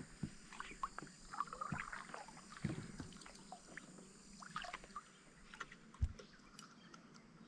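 Quiet handling sounds on a fishing kayak: scattered light taps and knocks, with one louder low thump about six seconds in.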